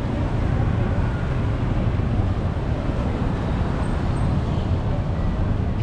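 Steady rumble of road traffic, a continuous low noise with no single vehicle standing out.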